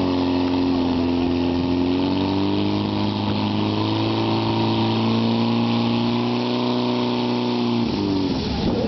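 Portable fire pump's engine running at high revs, driving water through the attack hoses. The steady note dips slightly at the start, rises a little about two seconds in, then drops in pitch and breaks off about eight seconds in.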